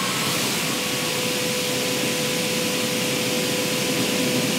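Steady hiss of a painting robot's spray atomizer misting paint onto a car body, with a constant hum underneath.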